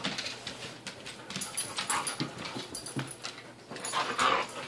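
Two huskies play-fighting on a wooden floor: scuffling and clicking of claws and jaws, with a few short whining dog noises, one of them just after four seconds in.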